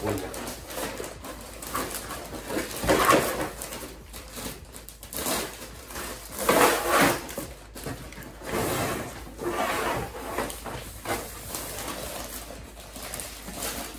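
Clear plastic bag rustling and crinkling as a long plastic car side skirt is pulled out of it and out of a cardboard box, in bursts of about a second, loudest about three, seven and nine seconds in.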